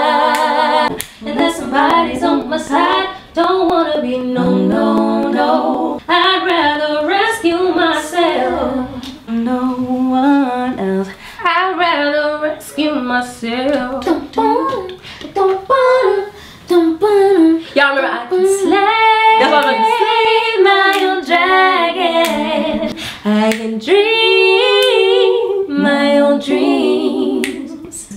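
Young women singing a cappella, several voices together with no instruments.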